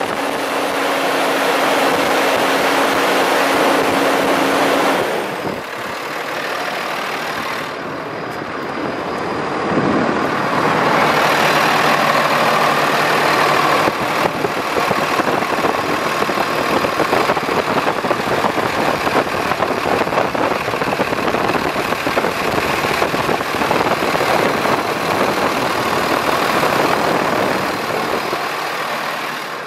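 Diesel engine of a 2009 Freightliner M2 truck idling, heard up close at the open engine bay; the sound shifts briefly about ten seconds in, then settles back to a steady idle.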